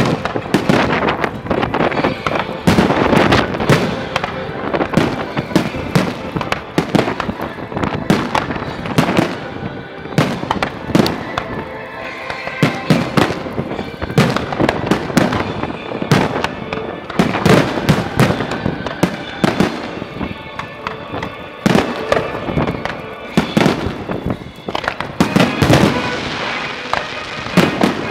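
Fireworks display: aerial shells bursting overhead in a continuous series of sharp bangs, thickest in clusters that overlap one another.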